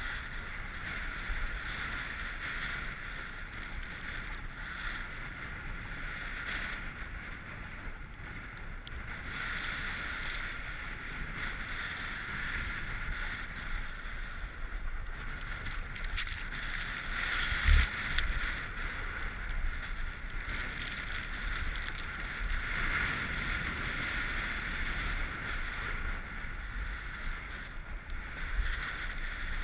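Skis sliding over groomed snow with a steady hiss and scrape, and wind rumbling on the helmet-camera microphone. One sharp thump about eighteen seconds in.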